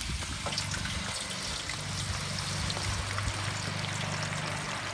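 Raw cut russet potato fries sizzling in deep peanut oil at about 350°F, just lowered in a wire fryer basket. It is a steady, dense crackle of popping bubbles over a low hum.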